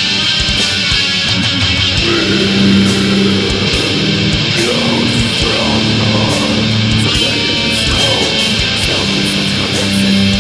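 Heavy metal band recording: distorted electric guitars and bass holding sustained chords over drums, with regular cymbal hits.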